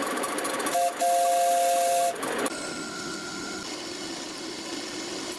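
A miniature steam locomotive's whistle is blown: a hiss, then two steady notes sounding together for about a second. After that an end mill cuts brass on a milling machine, a steady machining noise.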